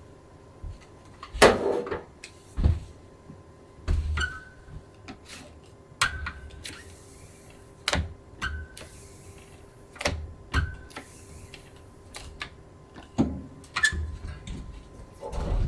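Hand silkscreen printing work: a series of sharp knocks and clacks about every two seconds, several followed by a short squeak, and in the middle stretch brief hisses of about a second each.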